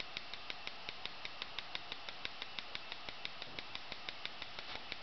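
Wolf gas range's spark igniter clicking rapidly and evenly, about seven clicks a second, over a steady hiss of gas; the burner has not yet caught.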